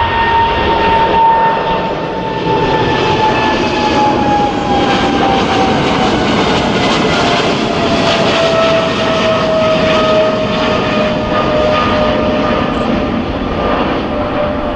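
Boeing 777-300ER's twin GE90 turbofans at takeoff thrust in the climb-out: a loud, steady jet roar with a whining tone that slowly falls in pitch as the aircraft passes and climbs away.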